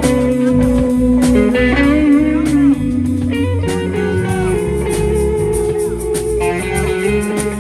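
Live band playing an instrumental passage: an electric guitar lead with bent notes over bass and a steady drum beat.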